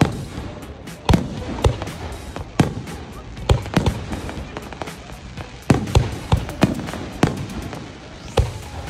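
Fireworks display: aerial shells bursting in quick, irregular succession, sharp bangs that sometimes come several close together, each followed by an echoing tail.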